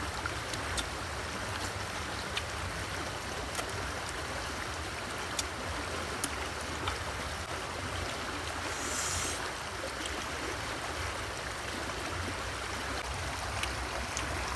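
Shallow river rushing over rocks, a steady rush of water, with scattered small clicks.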